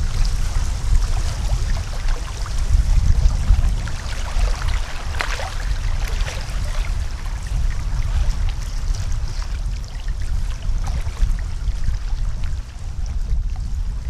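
Gusty wind rumbling on the microphone over small waves lapping and splashing at a lake's edge, with scattered little splashes.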